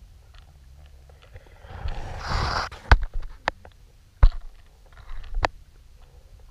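Underwater sound from a camera rig towed behind a trolling lure: a steady low rumble, a brief rushing scrape about two seconds in, then a handful of sharp knocks as the rig brushes and bumps through the weeds.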